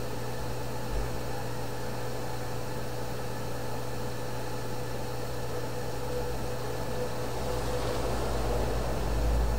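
Steady low hum with an even hiss and no speech; a deeper rumble swells from about seven seconds in.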